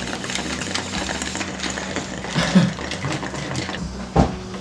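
Milk gushing and gurgling down a beer bong as it is chugged, with the flow dying away about three and a half seconds in. A single thump comes near the end.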